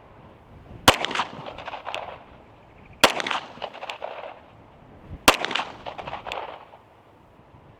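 Staccato P 9mm pistol firing three single shots about two seconds apart, each report followed by a trail of echoes.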